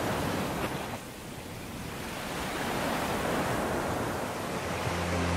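Surf crashing and churning over rocks: a steady, full wash of rushing water that dips briefly about a second in and then builds again. Low music notes come in just before the end.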